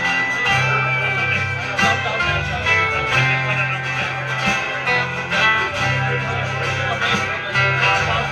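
Live acoustic session music: a group of fiddle and guitar players in full swing on a tune, with plucked strings prominent and a low note line that moves every second or so.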